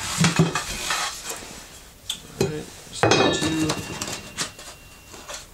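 Long cardboard package being handled and opened, with metal clinks and rattles from the chainsaw-mill rails inside. There is a denser clatter with a faint ring about three seconds in.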